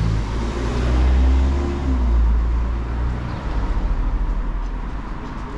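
A car driving past close by on the street, its engine and tyre noise swelling and then easing off after about three seconds, leaving a steadier background of traffic.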